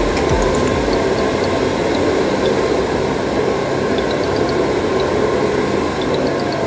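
Hair dryer running steadily, a constant blowing noise with a low motor hum.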